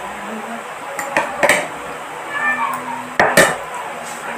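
Metal spoon and fork clinking and knocking against a plate while eating, a few sharp clicks about a second in and two more past three seconds.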